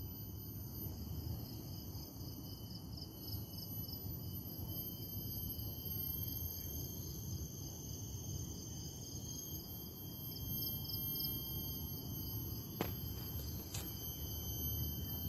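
Steady chorus of insects: several high-pitched tones held at once, one of them pulsing rapidly, over a low rumble. Two faint clicks about a second apart near the end.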